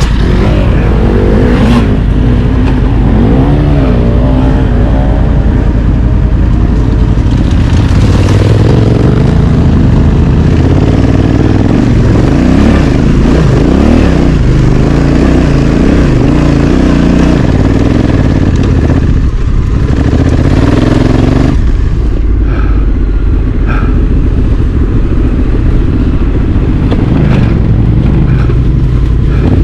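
Honda Africa Twin CRF1100's parallel-twin engine running under load off-road, its engine speed rising and falling as the throttle is worked.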